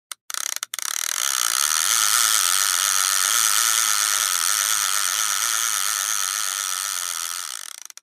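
A steady buzzing, grinding noise that starts with a few short clicks, builds over the first couple of seconds, then slowly fades and cuts off.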